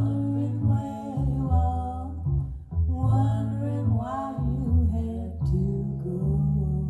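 A recorded song played back through large hi-fi loudspeakers and picked up in the room: a voice sings in two phrases over plucked upright bass notes and guitar.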